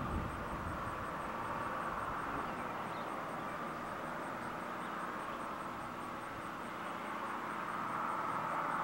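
Steady outdoor background noise, a continuous rushing hum with no distinct events, growing a little louder near the end.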